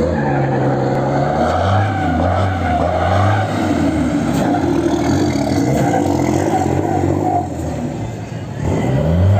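Diesel race truck engine revving hard while drifting, its pitch rising and falling; the revs drop about eight seconds in and climb again near the end.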